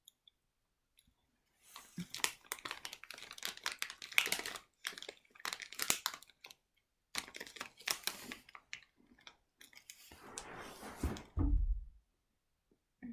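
Crinkling of a clear plastic cookie wrapper, mixed with the crunch of a gingerbread cookie being bitten and chewed, in a dense run of sharp crackles. A softer, lower rustle follows near the end.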